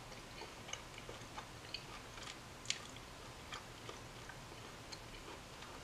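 Faint chewing of a mouthful of smoked duck, with soft, irregular clicks of the mouth and teeth; one sharper click comes about two and a half seconds in.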